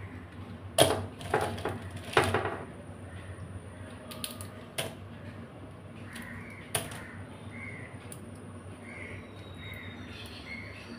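A crow caws harshly three times in the first couple of seconds. After that come a few sharp clicks of crab shell snapping as the crabs are broken apart by hand.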